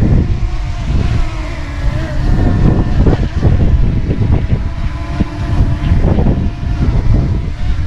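DJI Mini 2 drone hovering close by, its propellers giving a steady whirring hum that wavers slightly in pitch as it adjusts position. A heavy low rumble buffets the microphone underneath.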